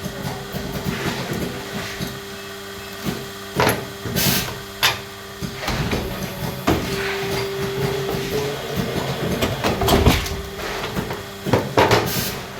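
Cable-making machinery running with a steady hum. Irregular knocks and clatter from handling come about half a dozen times.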